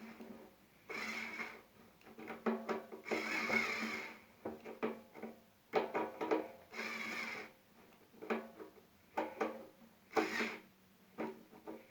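Background music with short clicks and rubbing of plastic parts being handled mixed in.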